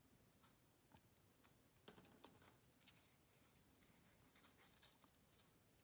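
Near silence with faint paper handling: scattered light clicks and soft rustles of cardstock as a small punched paper bow tie is pinched and a strip is folded around its middle, busier in the second half.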